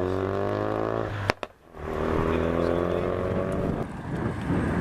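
Car engines driving on a road, each a steady pitched drone. Just over a second in, the sound breaks off with a click and a brief gap. Another engine drone follows, then near the end it gives way to a rougher, noisier sound of approaching cars.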